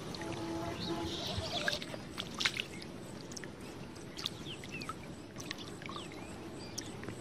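Shallow muddy water splashing and sloshing as a catfish thrashes at the grassy edge of a ditch, with a run of sharp splashes and drips, the loudest about two and a half seconds in.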